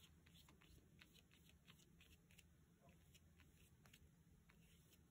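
Near silence, with faint, irregular scratching ticks of a small paintbrush dabbing and stroking green paint onto paper.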